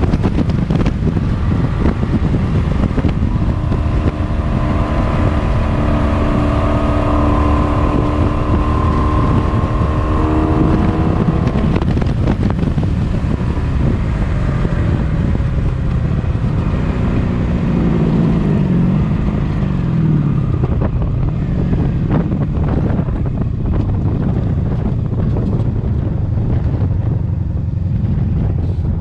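1983 Honda Sabre 750's V4 engine running at highway speed, revved out to clear carbon, under heavy wind buffeting on the microphone. The engine note climbs slowly for several seconds, and a lower note falls away a little past the middle.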